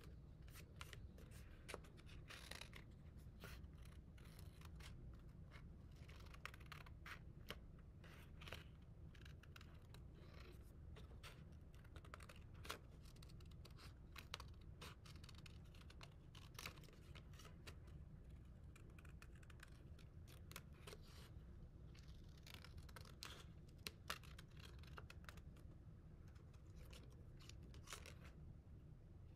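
Handheld scissors cutting paper: a faint, irregular run of short snips as a paper template is cut out.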